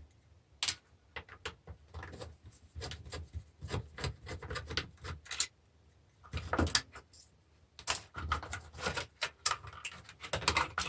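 Irregular clicks, knocks and rattles of small plastic and metal parts being handled and prised apart while a tyre inflator is taken to pieces for scrap, with a few short pauses.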